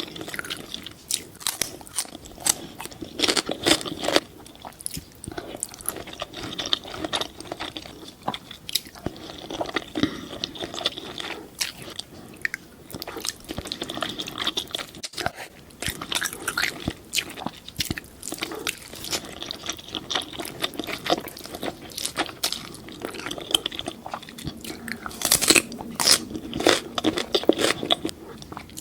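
Close-miked eating sounds: a person biting, crunching and chewing seafood, with many irregular sharp crunches.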